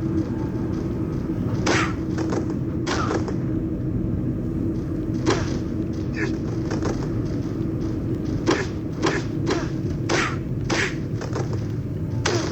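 Irregular thuds and slams, about a dozen, as of bodies and feet hitting a wrestling ring, some with a short squeak or ring after them, over a steady low rumble.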